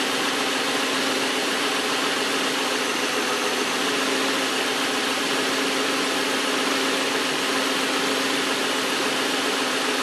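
Nissan VQ35 3.5-litre V6 idling steadily while it warms up during a coolant air bleed, heard from the open engine bay.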